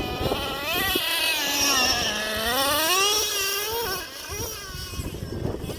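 Traxxas Slayer Pro RC truck's nitro engine running, its pitch dropping and then climbing again as the throttle is eased off and opened, before it fades away about four seconds in.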